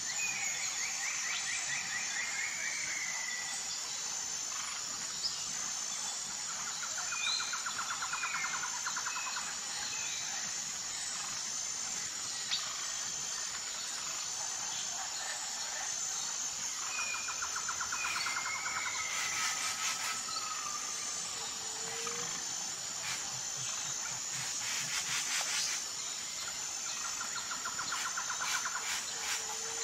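Natural ambience of insects and birds: a steady high-pitched insect drone underneath, with repeated trilling calls about two seconds long and scattered short bird chirps.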